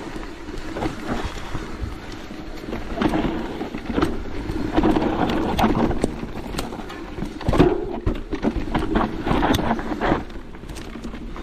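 Wind buffeting the microphone over a rumble from a Merida e160 electric mountain bike rolling over rough trail, with frequent clattering knocks and rattles from the bike.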